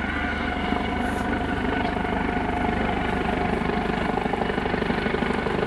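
Helicopter flying in on approach, its rotor and engine running steadily.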